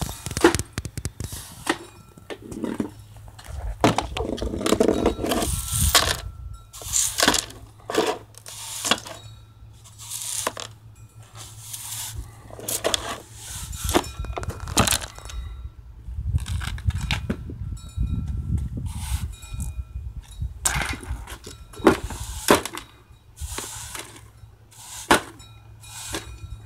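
Irregular rustling and crackling from a pile of clothes being moved about, over a steady low hum.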